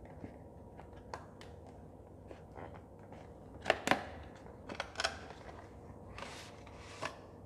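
Plastic foil packaging crinkling and crackling as it is pulled off and handled, with scattered sharp clicks; the loudest crackles come a little under four seconds in and again about five seconds in, with a brief rustle a little after six seconds.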